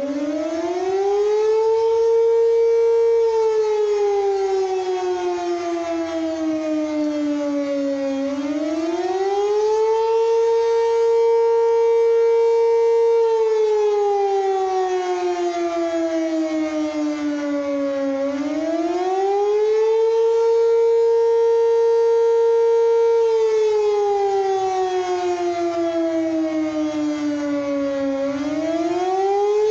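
Civil defense siren sounding its weekly test in a wail: a single tone that rises over about two seconds, holds briefly at the top, then slowly sinks, starting over about every ten seconds.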